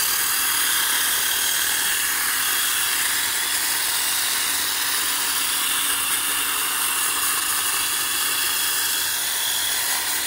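Drill-driven 1-inch wire brush running steadily against a steel wheel rim, scrubbing off rust with an even whirring hiss.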